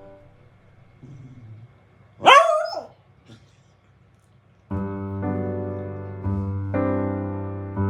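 A border collie gives one sharp, loud bark about two seconds in. Background piano music fades out at the start and comes back in a little past halfway.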